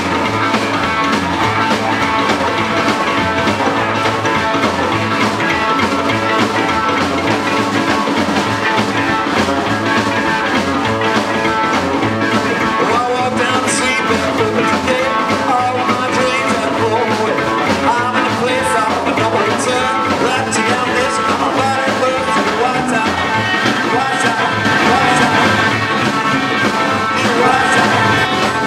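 Rock'n'roll band playing live, with electric guitar.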